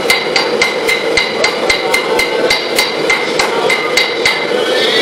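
Blacksmith's hammer striking steel on an anvil in a steady rhythm of about four blows a second, each blow ringing with a bright metallic ring. The blows pause briefly near the end, and a steady rushing noise runs underneath.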